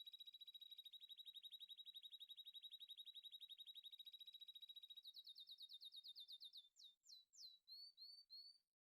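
A high, bird-like chirping trill: a fast, even run of about twenty chirps a second. After about five seconds it changes to sweeping chirps, then a few separate rising and falling notes, and it stops abruptly.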